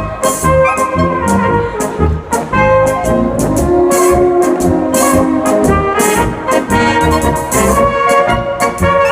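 Brass band playing a polka, with melody over a steady beat of bass notes and drum strikes.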